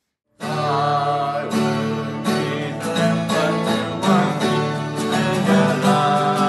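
Twelve-string acoustic guitar played in steady chords, starting about half a second in after a brief silence.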